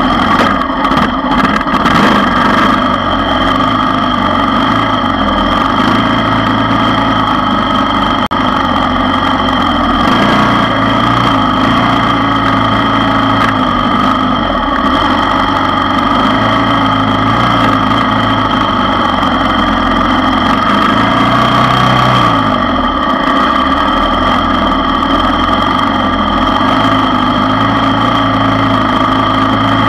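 ATV engine running as it rides, its pitch shifting up and down with the throttle a few times. A few sharp knocks in the first couple of seconds.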